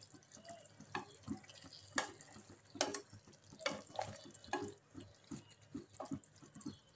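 A spatula stirring chicken pieces in a thick, wet gravy in a kadai: irregular wet squelches and knocks against the pan, roughly one a second.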